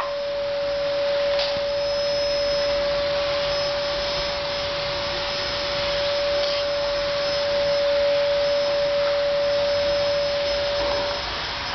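A steady machine hum: one constant mid-pitched tone over an even hiss, which drops out briefly near the end.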